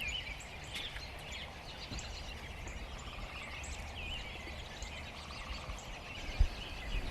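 A mixed flock of blackbirds, grackles and cowbirds calling together: many overlapping short chirps and squeaky calls, over a steady low rumble. There is one brief thump about six seconds in.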